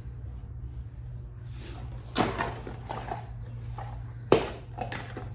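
Knocks and clatter of hand-handled motorcycle hardware being set down and moved: a loud knock about two seconds in with a second of rattling after it, then a sharp knock about four seconds in, over a steady low hum.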